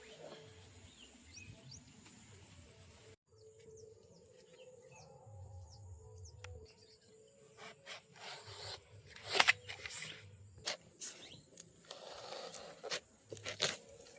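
Insects trilling steadily in a high, pulsing tone, joined in the second half by a run of loud, short rustling and scraping noises, the loudest about halfway through and near the end.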